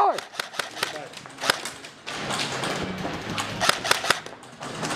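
Airsoft guns firing in an irregular string of sharp pops, a few shots a second, some closer and louder than others.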